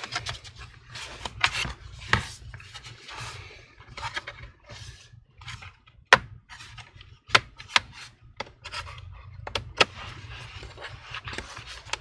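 Plastic pry tool scraping along the seam of an Asus Zenbook laptop's bottom cover, with irregular sharp clicks and snaps as the cover's retaining clips let go one by one.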